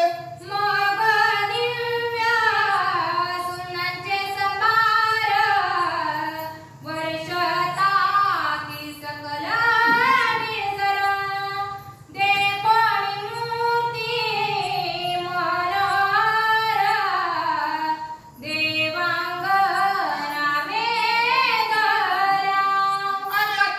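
A woman's voice singing a devotional verse solo, in slow phrases of long held notes with gliding ornaments, pausing for breath about every five or six seconds.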